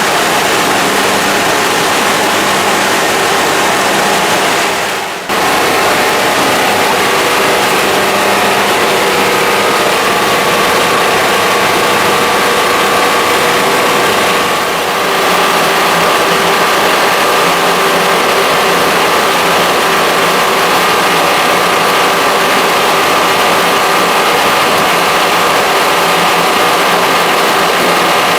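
A washing machine for PET plastic running steadily, a loud mechanical noise with a steady whine in it that grows stronger about ten seconds in. The noise dips briefly around five seconds in and again around fifteen seconds in.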